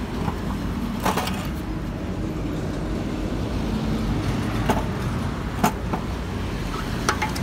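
A few sharp metallic clicks and knocks from a small Kubota gasoline engine being handled and opened up for inspection, over a steady low rumble.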